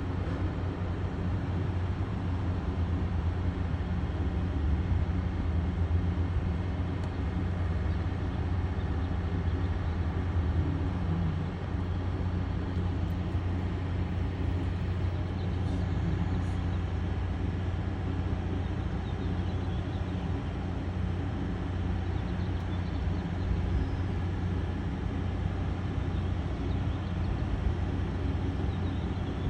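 Helicopter running steadily, a constant low engine and rotor drone that neither builds nor fades.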